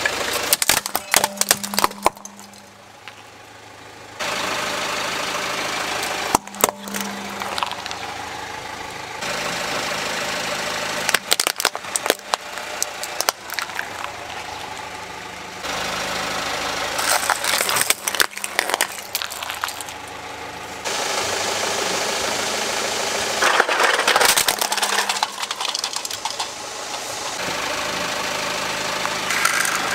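Plastic toys (a model airliner, a toy truck, a small toy plane) cracking and snapping under a car tyre, in several separate crushes one after another. A car engine runs steadily underneath.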